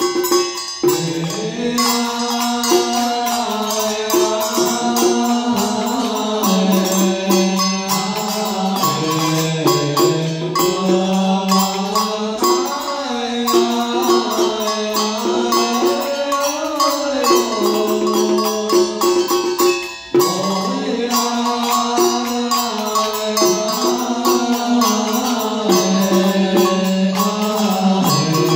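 Vietnamese ritual hymn (tán) chanted by a single voice in a slow melody that glides and wavers between long held notes, over regular percussion strikes. The chant breaks off briefly about twenty seconds in, then goes on.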